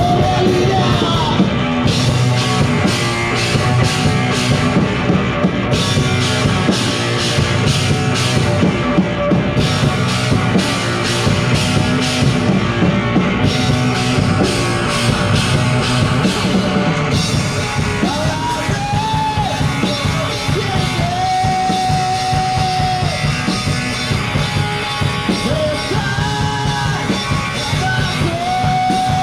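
Rock band playing live with drum kit and electric guitars, an instrumental stretch between sung lines. In the second half, long held notes that bend in pitch ring out over the band.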